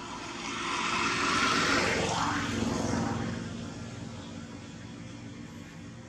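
A passing engine swells up, its pitch falling as it goes by, and fades away over about three seconds.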